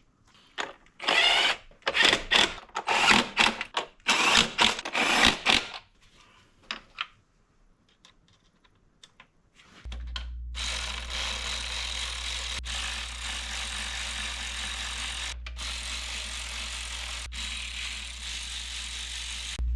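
Bursts of rapid mechanical clicking from hand-tool work for the first several seconds. About halfway through, a smoke-test machine switches on and runs steadily, with a low hum and a hiss, feeding smoke into the M62TU V8's intake to find vacuum leaks.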